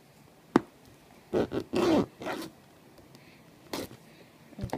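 Pen tip scraping and slitting the plastic shrink-wrap on a trading-card box: a sharp click, then several short scratchy rips of the plastic.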